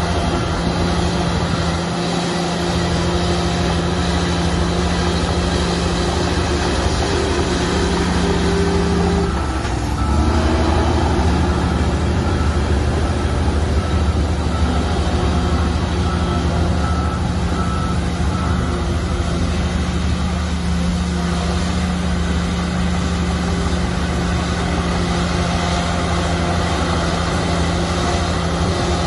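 Heavy diesel engine of earthmoving machinery running steadily under load. About ten seconds in, the engine note drops and comes back louder and deeper. For several seconds after that, a beep repeats about once a second.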